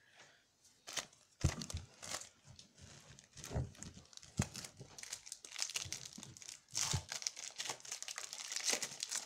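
Foil Yu-Gi-Oh booster pack wrappers crinkling and crackling as they are handled, with a wrapper being torn open; the crinkling grows denser from about seven seconds in.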